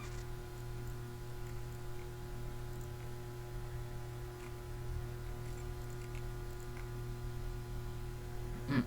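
Steady electrical hum with faint hiss, with a brief voice-like sound just before the end.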